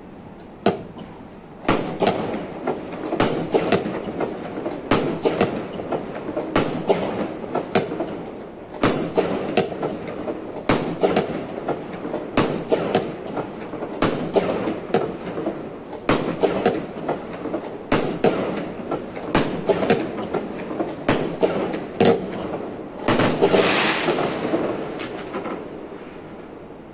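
Fireworks display: aerial shells bursting in a rapid barrage of bangs, two or three a second, over a continuous rumbling echo. Near the end comes a louder, denser flurry of crackling bursts, and then the bangs die away.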